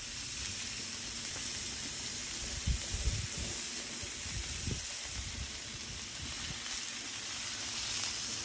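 Balls of ground beef sizzling on a hot Blackstone flat-top griddle, a steady frying hiss. A few dull low thumps come about three seconds in.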